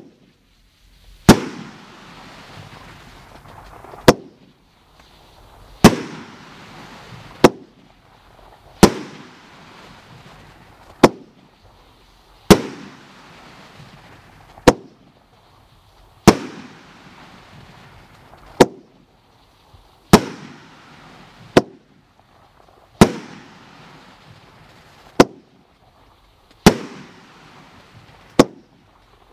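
Cutting Edge Fireworks 'Patriotism' multi-shot cake firing: a steady run of sharp bangs about every one and a half to two seconds, each trailing off in a fading rush of noise as the shots burst into white stars.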